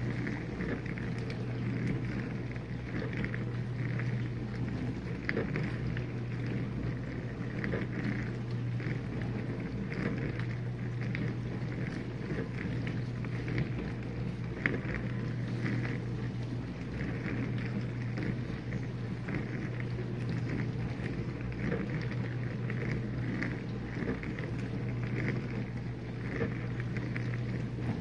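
Whirlpool dishwasher running its wash cycle: the steady hum of the circulation pump under the patter of water spraying against the inside of the tub.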